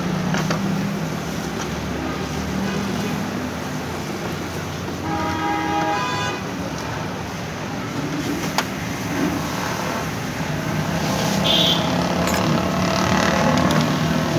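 Steady low hum with traffic noise; a vehicle horn sounds for about a second and a half about five seconds in, and a sharp click comes a few seconds later.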